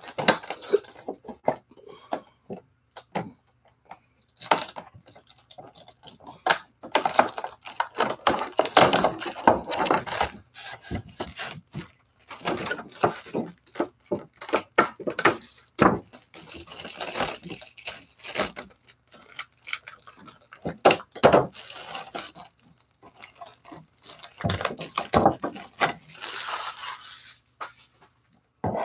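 Thin plastic crinkling and tearing as it is peeled off a Funko Pop vinyl figure's box, in irregular bursts of rustling.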